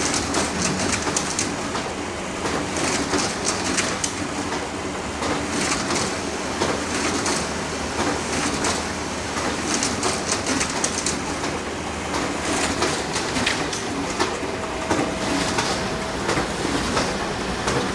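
Photocopier running continuously: a steady mechanical noise with repeated short clicks and clatter.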